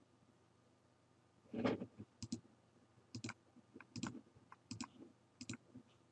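A computer mouse clicking: a faint, irregular series of about a dozen sharp clicks, several of them in quick pairs, starting about one and a half seconds in.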